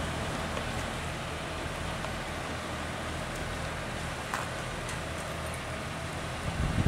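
Class 143 Pacer diesel multiple unit idling steadily at a station platform, its underfloor diesel engine running with a low steady hum. A faint click about four seconds in and a short loud hiss right at the end.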